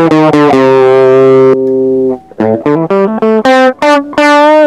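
Electric guitar played through a TC Electronic HyperGravity mini compressor pedal, with its level turned up to act as a boost. Quick single notes lead into one note held evenly for about a second. After a brief drop, more single notes follow; by near the end the pedal is switched off.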